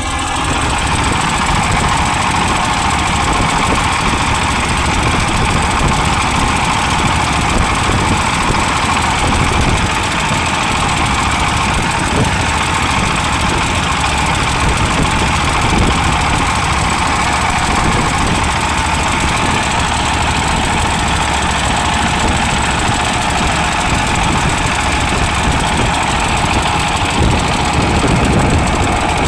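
Steady engine noise while riding, mixed with strong wind rumbling on the microphone.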